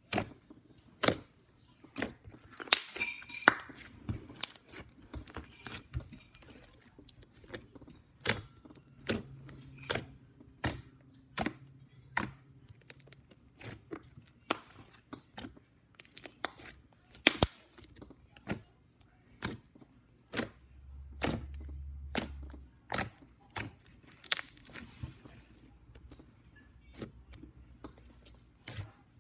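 Thick slime being pressed and squished by hand, giving sharp wet pops and clicks at irregular intervals of about a second, with a denser run of crackling a few seconds in.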